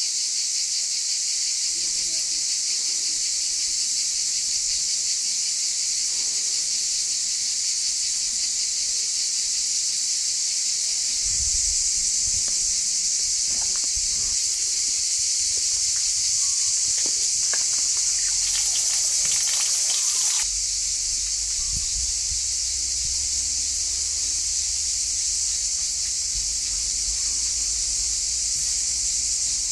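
Steady, loud chorus of summer insects: a continuous high-pitched hiss that does not let up. A low rumble joins beneath it from about a third of the way in to about two-thirds.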